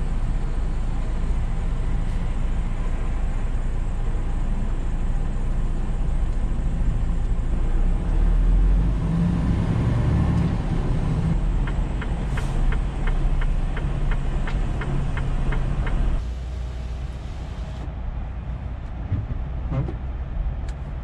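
Freightliner Cascadia semi truck's diesel engine heard from inside the cab, a steady low rumble that swells briefly as the truck pulls ahead. A regular ticking, about two or three a second, runs for a few seconds midway, and then the sound drops suddenly to a quieter cab hum.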